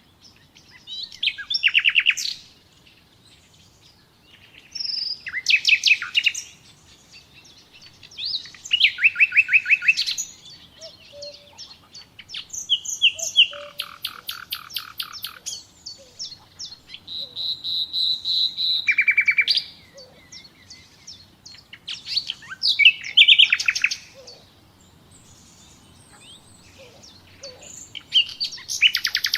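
Common nightingale singing: a string of short, varied phrases of fast repeated notes and trills, separated by brief pauses. One phrase, about two-thirds of the way through, opens on a steady high whistled note before breaking into a trill.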